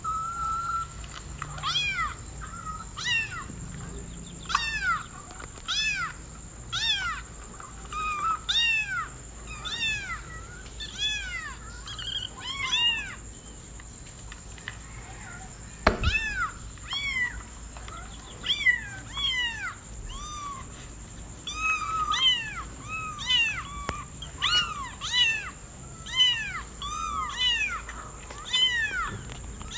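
A kitten meowing over and over in short, high-pitched calls that rise and fall, about one a second. There is a pause about halfway through, ended by a single sharp knock.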